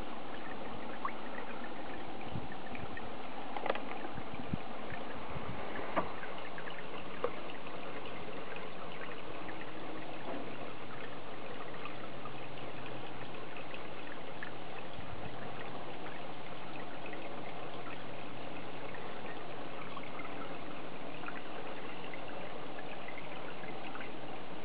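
Steady trickling of water into a garden pond, with a few soft clicks in the first several seconds.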